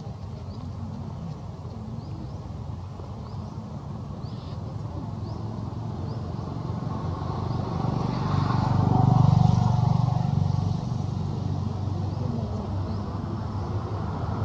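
Motor vehicle passing, its engine growing louder to a peak about nine seconds in and then fading, over a steady low traffic rumble. Faint, short, high chirps repeat in the first few seconds.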